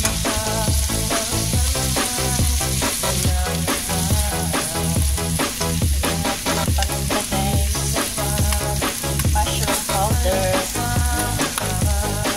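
Diced Spam and green peas sizzling as they are stir-fried in a wok, with stirring, under background music with a steady beat.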